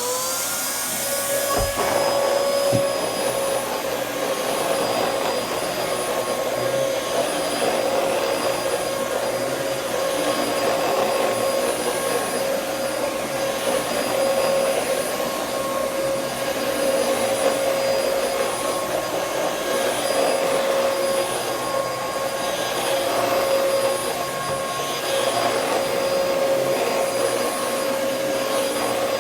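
Vacuum cleaner switched on and running: the motor whine rises and settles to a steady pitch within the first second, then holds steady over a rushing suction noise, as the machine is tried again after being checked for a clog.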